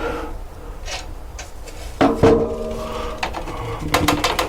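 Clicks and knocks of hands handling the exhaust fan's parts while setting it up. One sharper knock about two seconds in rings briefly, and a few more clicks come near the end.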